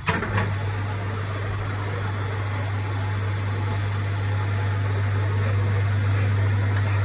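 Manual metal lathe starting up and running: a couple of sharp clicks right at the start, then a steady electric-motor hum with even mechanical running noise, slowly growing a little louder.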